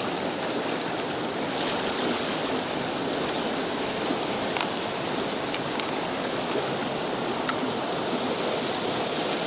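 Swollen Mississippi River floodwater rushing and churning past the roadway, a steady, even rushing noise.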